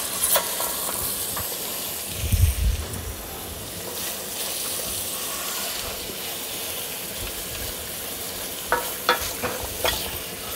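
Pieces of lamb shoulder sizzling steadily as they brown in hot butter in a stainless steel pot. A low thump about two seconds in and a few light knocks near the end.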